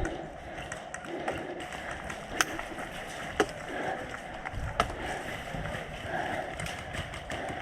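Three sharp snaps of airsoft gunfire, about two and a half, three and a half and five seconds in, over steady scuffing and rustling from a player moving with his gear.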